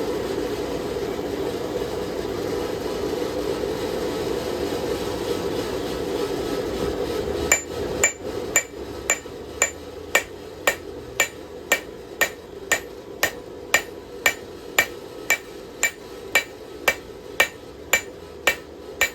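A steady low hum, then about seven seconds in a blacksmith's hand hammer starts striking hot knife steel on an anvil with its peen side. The blows come in an even rhythm of about two a second, each with a short high ring, and the hum fades as they begin.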